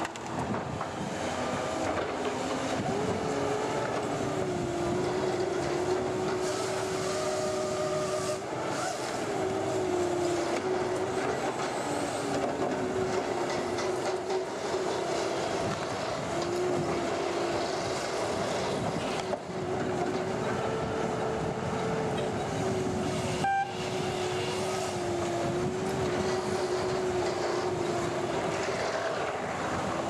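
Heavy diesel engine of a truck-mounted Skagit tower yarder running under load, its pitch stepping up and down as it works the cable drums. A short sharp knock about two-thirds of the way in.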